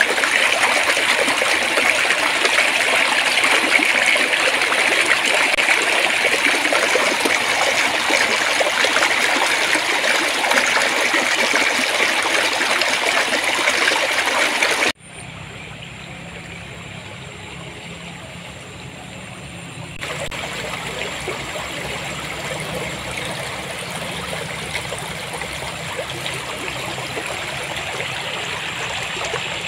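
A shallow stream of flowing water babbling and trickling steadily. About halfway through it cuts suddenly to a quieter, duller stretch of running water with more low rumble.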